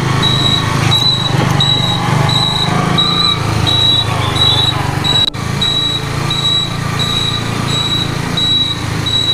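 Motorcycle engine running with a steady low hum, which the rider says is revving a little higher than it should. A high electronic beep repeats about twice a second over it, and the sound breaks off for an instant a little past five seconds in.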